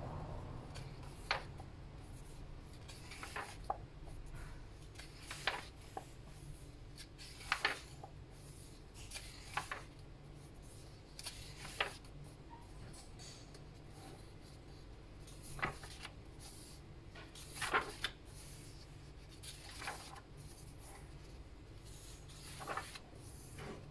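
Pages of a paperback sticker book turned by hand: about a dozen short papery swishes and rustles, a second or two apart, with fingers brushing over the paper.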